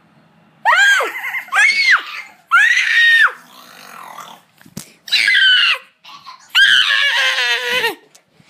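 A child screaming: five loud, high-pitched screams, each rising then falling in pitch, the last one longer and wavering.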